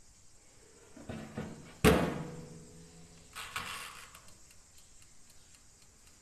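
The metal-and-glass door of a small countertop toaster oven is shut with a sharp bang about two seconds in, ringing briefly afterwards. A shorter, softer rattle follows about a second and a half later.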